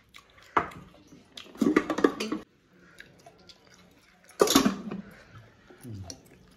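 Spoon scooping food and setting it down on a plate, with clattering and scraping in three short bursts: about half a second in, around two seconds in, and the loudest at about four and a half seconds.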